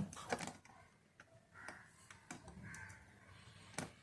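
Faint scattered clicks and light taps of small parts being handled, the sharpest click near the end, with a couple of short, faint calls in the background.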